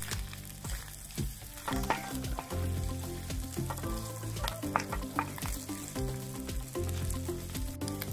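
Chopped lamb kokoreç sizzling and frying on a hot saç griddle, stirred with repeated sharp taps and scrapes.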